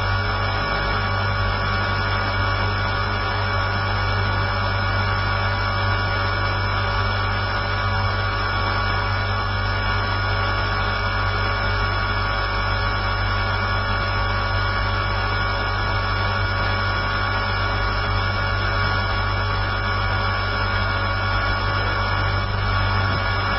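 Electric RC helicopter (Align T-Rex 450) motor, gears and rotor running at a constant speed, heard close through the camera mounted on it: a steady whine made of several fixed tones that does not change.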